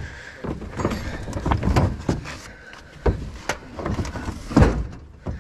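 Irregular knocks, thumps and scraping of a heavy sawn log round being tipped and shifted on a pickup truck's metal bed, the heaviest thump about four and a half seconds in.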